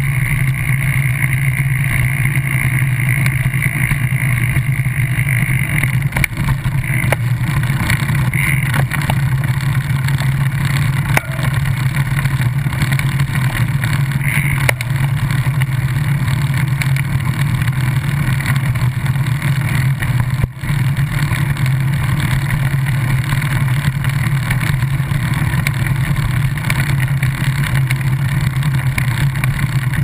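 Steady, unbroken low rumble of travel noise, with a couple of brief dips in loudness.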